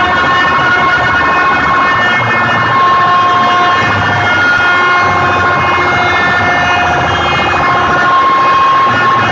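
Loud, distorted siren- and horn-like tones blasting from a DJ sound-box rig in a sound competition. Several steady pitches sound together and change every second or two over a rough low rumble.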